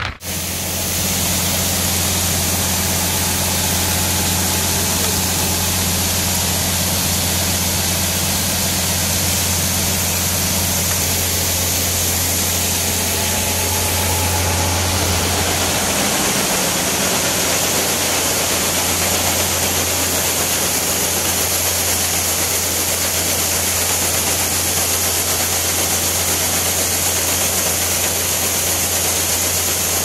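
Engine running steadily under a constant hiss: first the loaded grain truck on the road, then, from about halfway, the tractor turning an 8-inch grain auger off its 540 PTO as dry shelled corn flows into the pile.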